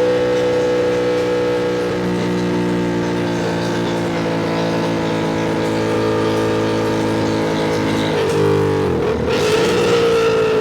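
Ducati Panigale V2's V-twin engine running at a steady pace, then briefly dropping in revs about eight seconds in and picking up again.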